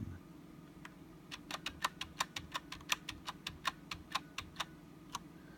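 Cherry MX Brown mechanical keyboard switches being pressed in a quick run of clicks, about six a second. The keycaps are fitted with O-rings to damp the bottoming-out.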